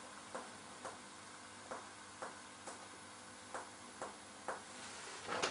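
Finger-on-finger percussion: a doctor's middle finger striking a finger pressed flat on the patient's body, giving about eight soft, short taps spaced half a second to a second apart, several of them in pairs.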